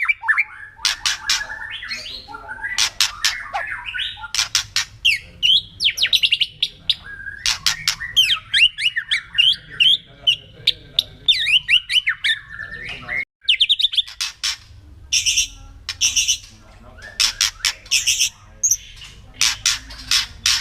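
White-rumped shama (murai batu) calling in the harsh 'kretekan' style: fast rattling, clicking notes mixed with short whistled glides. There is a brief break a little past halfway.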